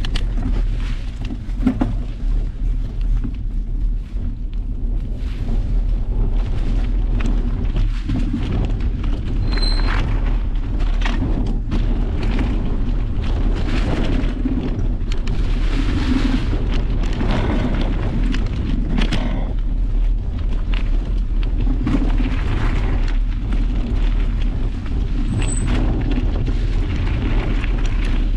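Steady wind noise on a GoPro's microphone while riding a mountain bike down a dirt trail, with the tyres on dirt and leaves and many short clicks and rattles of the bike over bumps.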